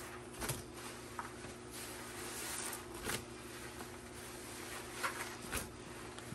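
A sponge soaked in thick grout paste being squeezed and pressed by gloved hands in a plastic tub, wet squishing throughout with several short sharp squelches spaced through it.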